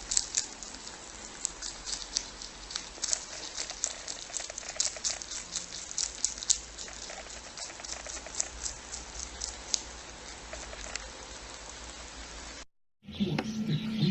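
Lop-eared rabbit chewing leafy greens: quick crisp crunching clicks, several a second. Near the end it cuts off, and a louder, different sound starts.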